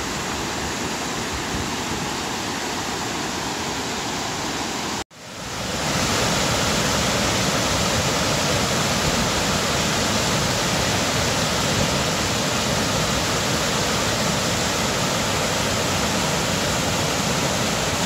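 Dam spillway water rushing over rock ledges in a steady whitewater rush. After a brief dropout about five seconds in, a closer cascade is heard, louder.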